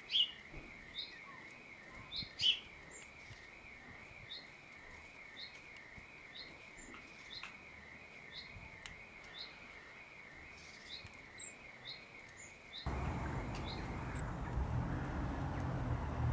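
Fledgling blackbird begging with short high chirps, repeated about once or twice a second. About 13 s in the sound switches to a steady low outdoor rumble.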